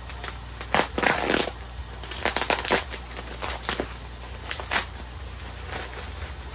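Packaging being handled and crumpled, giving irregular crinkling and crackling with sharp clicks in several clusters, over a steady low hum.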